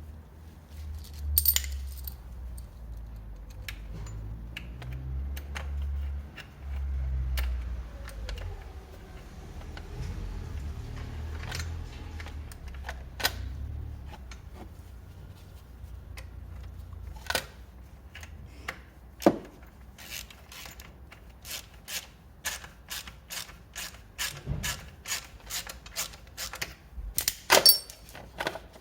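Clicks, taps and knocks of tools, screws and plastic panels being handled while an engine cover is refitted on a scooter. A low rumble runs through the first half, and the clicks come faster and louder in the second half.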